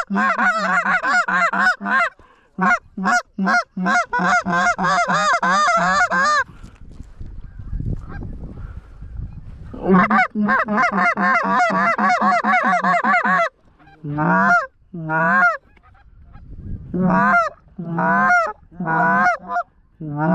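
Goose calling: loud, close honks and clucks in fast runs of several calls a second, breaking off for a few seconds of low rumbling noise about a third of the way in, then resuming and slowing to separate honks near the end.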